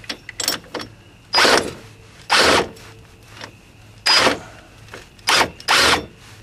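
Impact wrench hammering in about five short bursts, with small clicks between them, spinning the nut on a wheel stud installation tool to draw a new wheel stud into the front hub.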